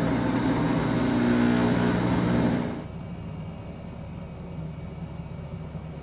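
Jack LaLanne Power Juicer Elite's motor running with a steady hum, its locking handle now pushed fully home so the safety switch lets it run. The hum cuts off sharply about three seconds in, leaving a quieter steady background.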